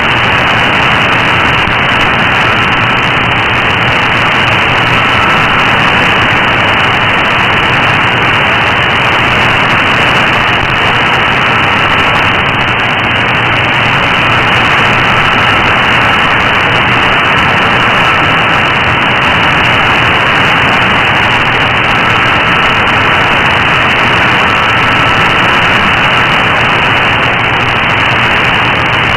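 Shortwave radio receiver in AM mode hissing with steady static on a very weak signal, no programme audible. A faint high whistle comes and goes several times.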